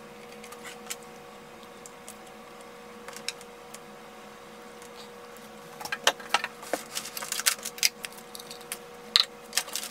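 Speaker cables and plugs being handled and connected to a desktop speaker system's subwoofer: scattered light clicks and rattles, growing busy from about six seconds in, over a faint steady hum.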